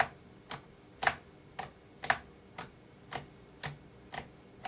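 RC transmitter toggle switch flicked back and forth, clicking evenly about twice a second, to switch the DJI Naza flight controller into compass calibration mode.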